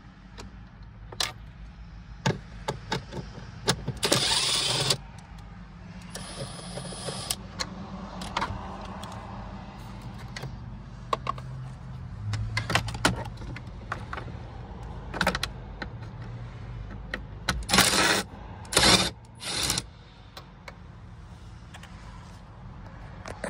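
Cordless drill with a socket spinning out the instrument cluster's small bolts in several short runs of about a second each, with clicks and knocks of handling in between.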